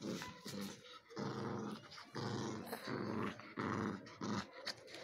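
Small dog growling in play as a hand wrestles with it, in about four rough growls of roughly a second each.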